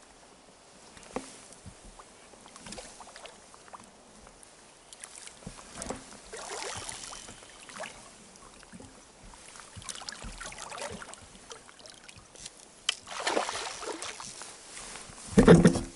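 Water sloshing and lapping against a small inflatable boat, with intermittent swishing and light knocks. A louder sound comes near the end.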